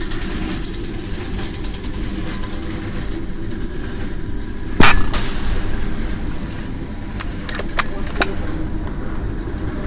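A single sharp shot from a regulated bullpup PCP air rifle (Jaeger) a little under five seconds in, over a steady low rumble. A few light metallic clicks follow near the end as the action is cycled for the next shot.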